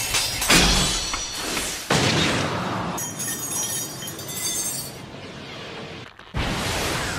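Anime fight sound effects: sharp explosive impacts in the first two seconds as burning shuriken hit. Then a quieter, ringing metallic scrape as two blades press against each other, and a sudden loud burst about six seconds in.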